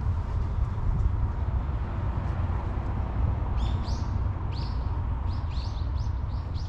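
Birds calling: a quick run of short, high chirps begins about halfway through, over a steady low rumble.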